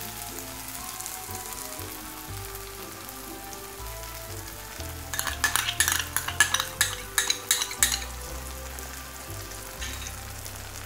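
Onion-tomato masala frying in oil in a non-stick pan, with a steady sizzle. About halfway through, a burst of sharp crackles and clicks lasts about three seconds as beaten curd goes into the hot pan.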